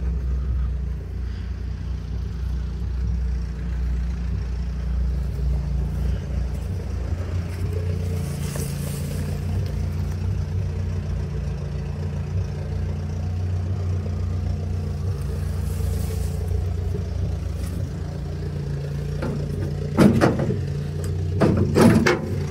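A nearby engine running steadily at an even low pitch. About twenty seconds in, a few loud metallic clanks and rattles as the truck's steel cab door is worked open.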